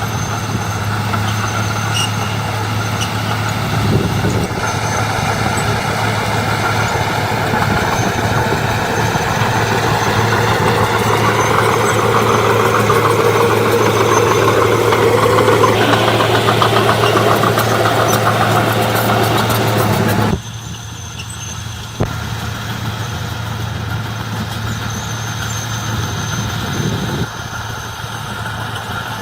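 Diesel engines of heavy earthmoving machinery running with a steady low hum. The sound grows louder over the first two-thirds, then drops abruptly and carries on more quietly.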